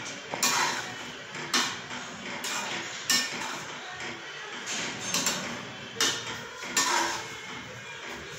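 Metal slotted spatula stirring wet moringa leaves and cooked dal in an aluminium pan, scraping and clinking against the pan's sides and bottom in irregular strokes.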